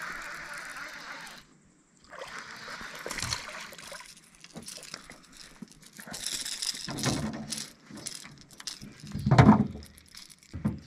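Water splashing and sloshing as a small largemouth bass is reeled to the surface and landed, with a few scattered clicks. A short, low, pitched sound about nine seconds in is the loudest part.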